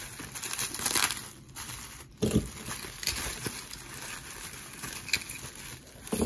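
Plastic bubble-wrap bag crinkling and rustling as hands dig pieces out of it. A sudden knock comes about two seconds in, and metal brooches clink as they drop onto a pile near the end.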